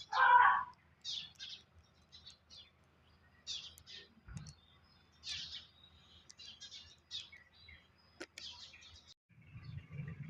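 Small birds chirping: many short, scattered high calls with pauses between them, a louder call right at the start, and a low rumbling noise building near the end.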